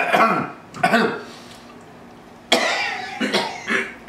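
A man coughing hard while eating, in two fits of a few coughs each: one at the start and another from about two and a half seconds in. It sounds like food caught in his throat.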